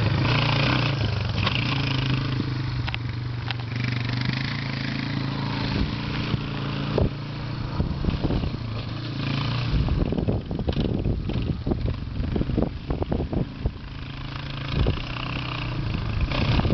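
Utility ATV engine running steadily as the quad is ridden along. In the middle the engine sound dips and a run of quick knocks and crackles takes over before the engine comes back.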